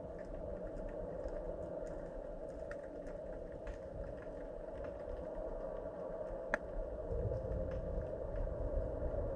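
Underwater ambience picked up by a submerged camera: a steady hum over a low rumble, with scattered faint clicks and one sharper click about six and a half seconds in. The low rumble grows louder about seven seconds in.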